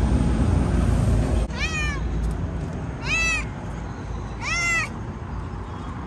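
Tabby-and-white cat meowing three times, about a second and a half apart, each short meow rising then falling in pitch. A low rumble is heard for the first second and a half, before the meows.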